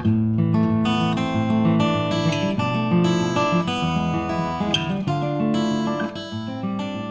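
Background music on acoustic guitar, plucked notes and strummed chords, growing quieter near the end.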